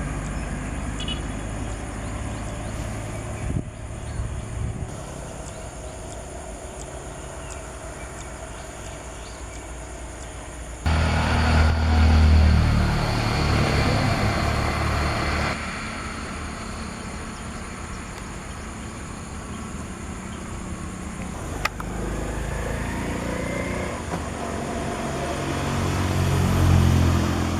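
Motor vehicle engine running with a steady low rumble. It turns abruptly louder about eleven seconds in and drops back a few seconds later. There is one sharp click past the middle.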